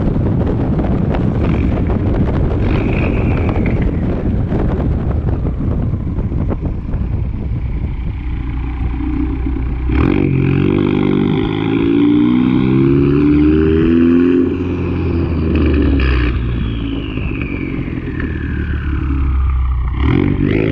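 Ford Focus ST's turbocharged 2.0-litre EcoBoost four-cylinder pulling through the gears, engine pitch climbing in steps with breaks at the shifts. A thin high turbo whistle rises under boost and then slides slowly down in pitch as it spools down.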